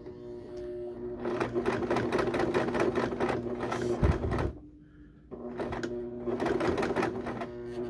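Electric household sewing machine running, its motor hum carrying a rapid clatter of needle strokes as it zigzag-stitches through coiled cotton rope. About four seconds in it stops with a low thump, pauses for about a second, then starts sewing again.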